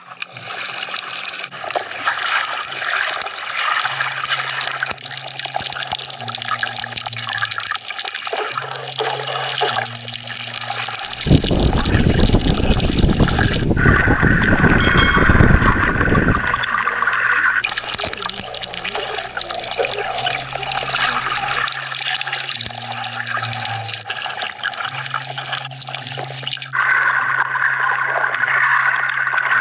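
Muffled water noise from a camera held underwater, with a low hum that shifts pitch in steps every second or so. About eleven seconds in, a louder rush of water lasts about five seconds.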